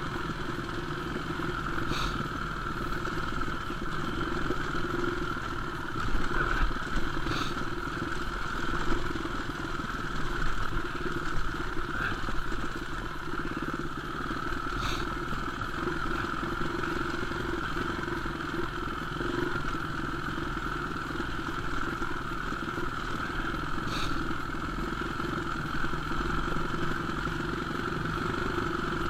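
Enduro motorcycle engine running steadily at a nearly constant speed, with a few sharp clicks from the bike or trail over the top.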